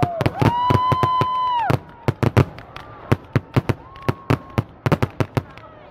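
Fireworks finale: a rapid string of sharp bangs, several a second. A long steady whistle starts about half a second in and a shorter one sounds around four seconds.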